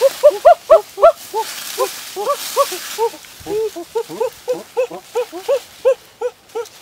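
A rapid series of short animal calls, each rising and falling in pitch, about four to five a second and sometimes two at once.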